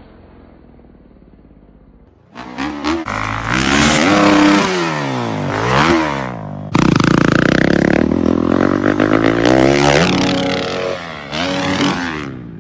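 Dirt bike engine revving, its pitch sweeping up and down several times as the throttle is blipped while the bikes are airborne on freestyle motocross jumps. Faint for the first two seconds; about seven seconds in it turns abruptly louder and noisier.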